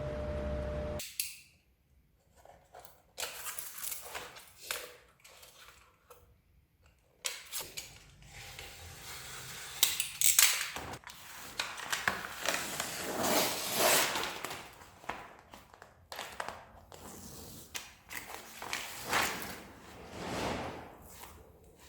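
A steady hum cuts off suddenly about a second in, followed by irregular knocks, clicks and rubbing of materials being handled and worked in a workshop, growing busier after about seven seconds.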